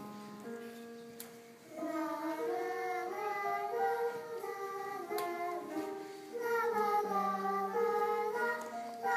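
Instrumental accompaniment plays held notes, then about two seconds in a small group of children starts singing a melody over it.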